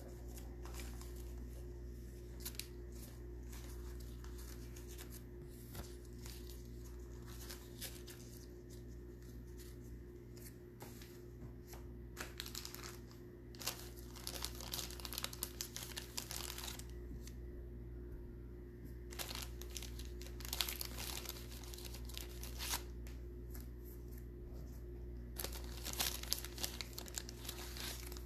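Crinkling and rustling that comes and goes, busier from about halfway on, over a steady low hum.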